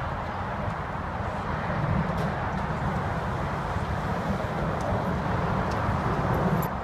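Steady rumble of motorway traffic mixed with the distant jet noise of the Avro Vulcan's four Rolls-Royce Olympus turbojets as the bomber flies past, the traffic about as loud as the aircraft. The noise swells slightly about two seconds in.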